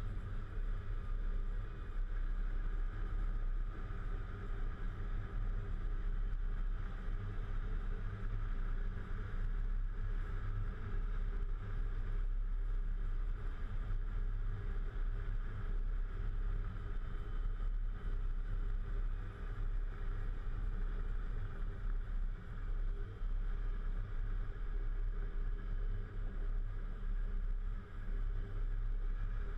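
Volvo FH 440 truck's diesel engine running steadily as the truck drives, a constant low drone under an even hiss.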